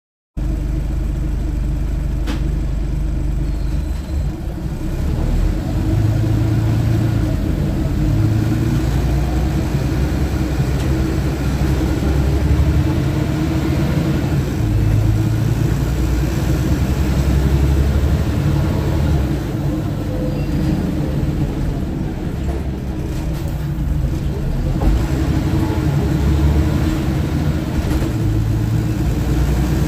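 Scania OmniTown bus heard from inside the saloon while under way: a steady low engine drone and road rumble, the engine note rising and falling with speed.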